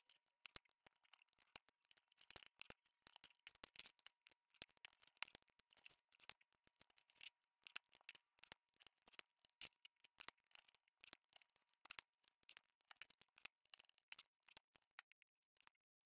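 Faint, irregular crackling and rustling of dry leaves, twigs and a paper-bag strip being handled and pressed down on a table.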